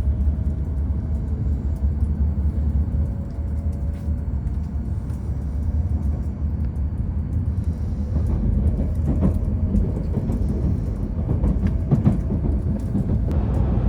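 Shinkansen train running: a steady low rumble, with a faint whine in the first few seconds and scattered light clicks.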